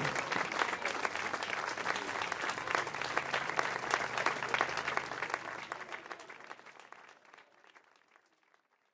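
Audience applauding: dense, steady clapping that thins out and fades away from about five seconds in.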